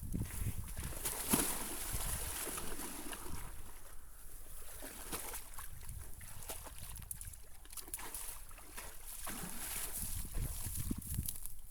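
Water sloshing and splashing as a water buffalo moves about in it, with irregular low thumps and small splashes.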